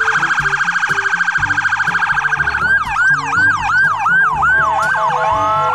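Emergency vehicle sirens: first a fast pulsing warble, then from about two and a half seconds in a quick yelp rising and falling about three times a second, ending in a long slowly rising tone.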